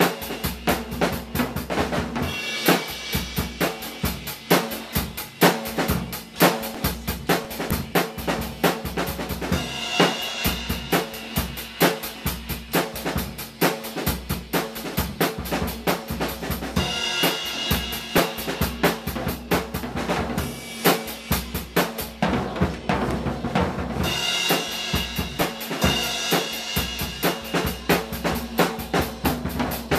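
Drum kit played at a fast, busy groove, with kick drum, snare and cymbals. There are several stretches of brighter cymbal wash.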